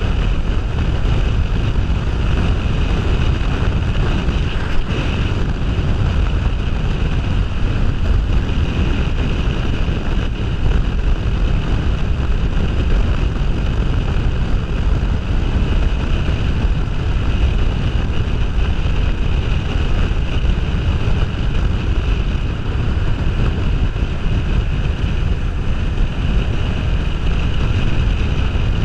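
Kawasaki Ninja 500R parallel-twin motorcycle riding at steady road speed: wind rushing over the helmet-mounted camera's microphone, mixed with the steady drone of engine and road.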